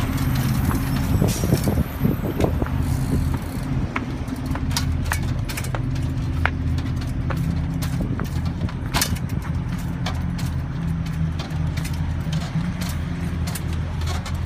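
Road bike being ridden up concrete steps: scattered sharp clicks and knocks as the wheels and cleats strike the steps, over a steady low engine-like hum.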